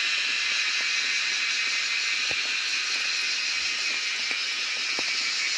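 Steady, high-pitched insect chorus filling the forest, unbroken throughout, with a couple of faint clicks about two seconds in and near the end.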